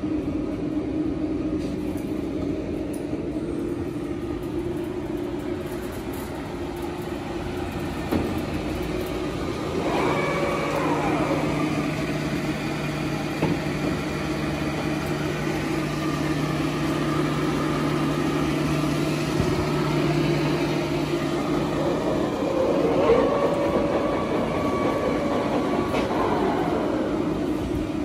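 24 x 120 Summit engine lathe running under power: a steady hum from the geared drive, with a deeper tone joining about a third of the way in and dropping out later. Whining tones fall in pitch once early on and again near the end, as parts of the machine speed up or slow down.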